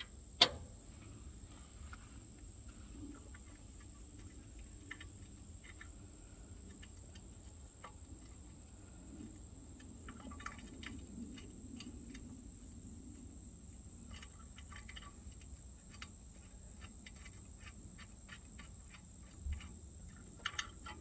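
Faint runs of rapid clicking from a ratchet wrench working the motor mount bolts loose, with a sharp metallic click about half a second in.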